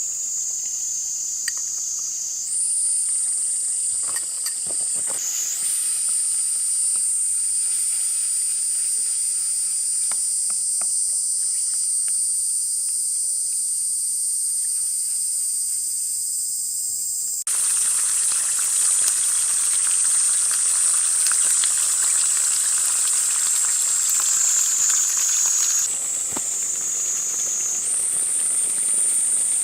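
Insects trill in a steady high-pitched chorus, with a few faint clicks in the first half. A little past halfway, loud sizzling from a skillet of mapo tofu cooking over the fire starts and runs on under the insects.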